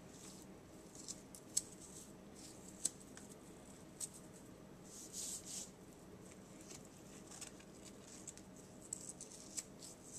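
Hands rubbing a dry spice rub into raw pork spare ribs: faint, scattered rustles and small clicks, with a brief hiss about five seconds in.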